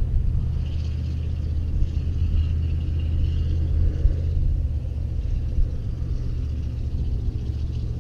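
Wind buffeting the camera microphone: a steady low rumble, with a fainter, higher hiss during the first half.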